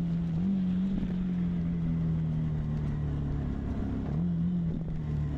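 A vehicle's motor droning steadily under way, its pitch dipping and rising slightly a few times, over a low rumble.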